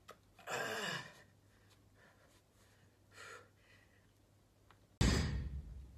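A lifter's forceful exhale with a falling pitch as he drives up out of a box squat with a loaded barbell, a softer breath a few seconds later, then a sudden heavy thud about five seconds in.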